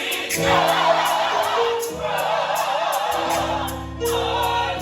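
Gospel choir singing over a live band, with held chords and a steady beat.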